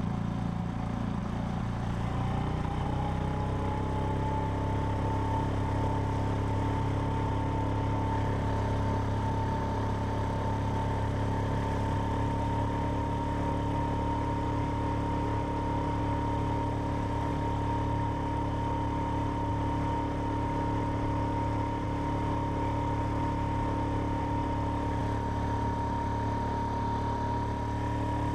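Outboard motor running steadily, pushing an inflatable boat along; its whine climbs a little in pitch over the first few seconds, then holds steady.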